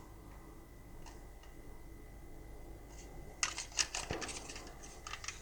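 Light clicks and taps of a small diecast toy truck being handled: a quick run of them about three and a half seconds in, and a few more near the end.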